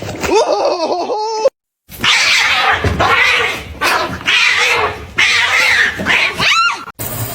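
A cat yowling in a run of long drawn-out calls, with a short break about one and a half seconds in.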